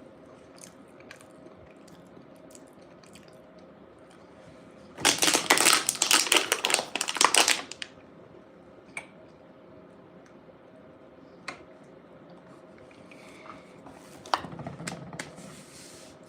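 Close-miked eating of a bean burrito: faint chewing and mouth clicks, broken about five seconds in by a loud crinkling, crackling rustle that lasts about two and a half seconds.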